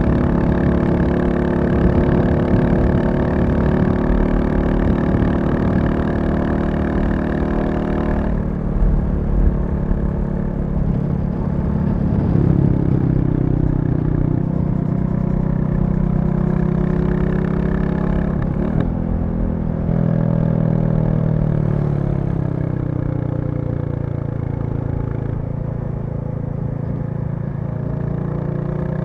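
Royal Enfield Classic 350's single-cylinder engine running under way. The throttle eases off about eight seconds in, there is a short break near two-thirds of the way through, then the engine note falls as the bike slows and settles to a steady lower run.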